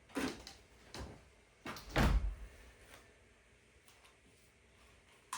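A few knocks and thumps, the loudest a heavy thud about two seconds in, then a short click near the end.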